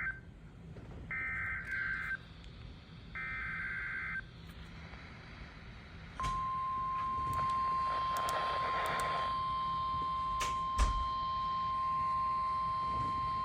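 Emergency Alert System header on NOAA Weather Radio: the end of one burst, then two more bursts of buzzy digital data tones about a second apart. After a short gap, the steady single-pitch 1050 Hz weather-radio warning alarm tone starts about six seconds in. Faint static and a couple of clicks sit underneath.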